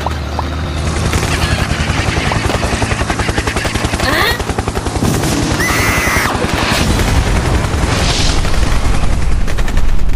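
Rapid, sustained machine-gun fire over a steady low rumble. It grows louder near the end, then cuts off suddenly.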